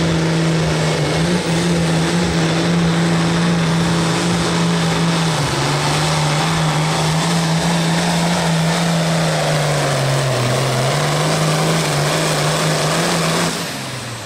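Turbocharged Farmall pulling tractor's engine running flat out as it drags a weight-transfer sled, a loud steady note that sags lower about ten seconds in, recovers briefly, then drops off sharply near the end as the pull finishes.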